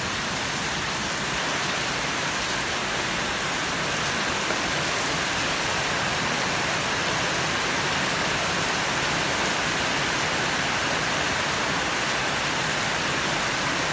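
Heavy rain pouring down in a steady, even hiss, heard from under a covered walkway.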